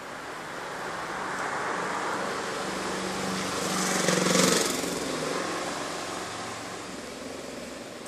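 A motor vehicle's engine passing by, swelling to its loudest about four and a half seconds in and then fading away.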